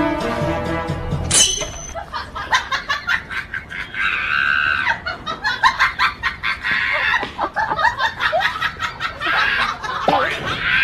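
Music that stops about a second in, followed by a person laughing: a long run of short repeated 'ha' sounds.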